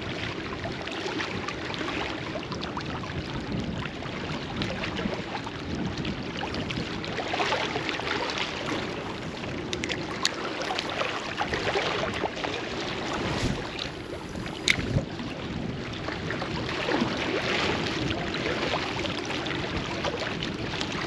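Gusty wind buffeting the microphone over choppy water lapping against a rocky bank, a steady rushing noise. A few sharp clicks stand out about halfway through.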